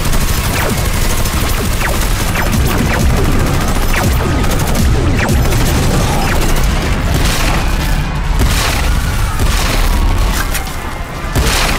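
Dense battle sound effects: rapid gunfire from rifles and tank guns mixed with booming blasts and explosions, the heaviest blasts a little after eight seconds and just before the end.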